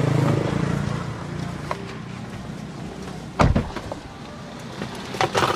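A car door of a Mitsubishi Xpander thuds shut about three and a half seconds in, over a low street-traffic hum. Near the end come a few knocks and clicks as someone climbs into the car.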